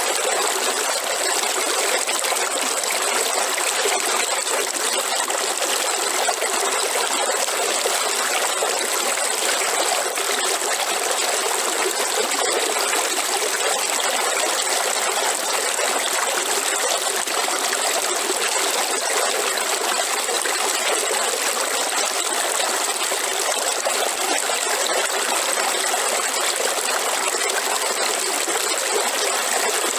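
River water flowing and babbling steadily, an even rushing with no breaks.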